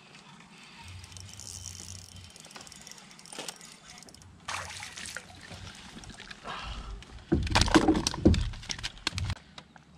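A hooked bass splashing and thrashing at the surface beside the kayak as it is landed: a loud burst of splashes starting about seven seconds in and lasting about two seconds, with lighter water sounds before it.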